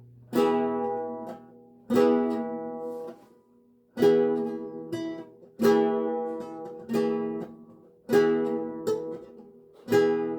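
Seven-course Renaissance lute tuned to A=415 Hz, played solo in slow plucked chords. About seven chords are struck, roughly one every one and a half seconds, and each is left to ring out and die away before the next.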